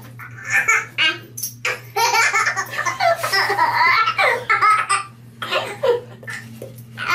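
A baby laughing in repeated bursts, with the longest run of laughter from about two to five seconds in, over a steady low hum.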